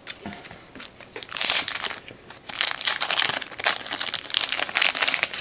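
Trading cards and their packaging rustling and crinkling as they are handled and sorted by hand, in irregular bursts that pick up about a second and a half in.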